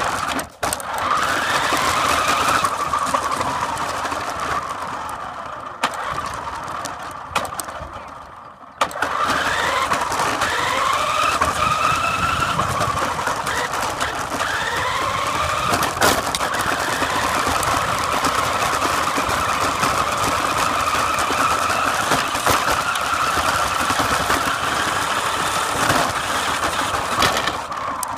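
Electric drive motor and gears of a New Bright toy car whining as it drives. The pitch climbs several times as it speeds up and then holds steady. The whine fades and nearly stops for a moment before about nine seconds in.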